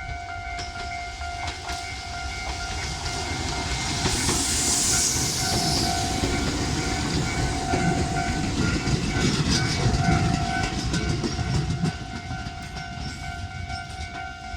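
Level-crossing warning bell ringing steadily while a Tobu 850 series electric train runs over the crossing into the station. The rumble and wheel clicks over the rail joints build from about four seconds in and drop away suddenly about twelve seconds in.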